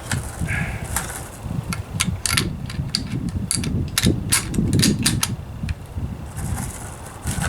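Brass 8mm Mauser cartridges clicking and clinking as they are handled and loaded into a Mauser rifle, many sharp irregular clicks over a low rumble.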